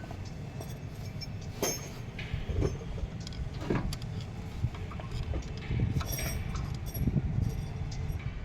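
A steady low mechanical rumble, with scattered metal clinks and knocks of tools and parts being handled, spaced irregularly about a second apart.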